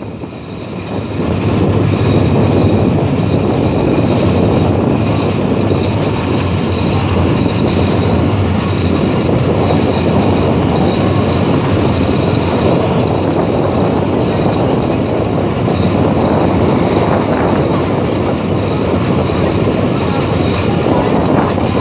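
Passenger train rolling past at close range: a steady, loud rumble of wheels on rail that swells over the first two seconds and then holds.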